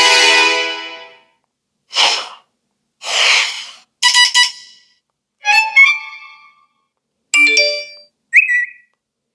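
Apple iPhone 13 Pro playing short preset alert tones one after another. A long tone fades out about a second in. Then come about six brief, different chimes and blips, each followed by a moment of silence.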